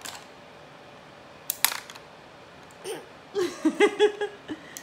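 Hard plastic toy playset pieces clicking and clattering as they are handled, with a sharp snap about one and a half seconds in. A short burst of giggling follows near the end.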